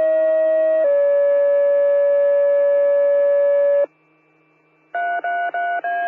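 Fire dispatch two-tone sequential page over the radio: a higher tone for about a second, then a slightly lower tone held for about three seconds. After a short gap comes a run of four short alert beeps, the last one higher.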